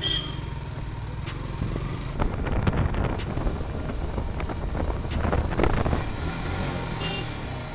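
Yamaha R15 V4's single-cylinder 155 cc engine running under way in town traffic, the throttle opening and easing, over road and wind noise.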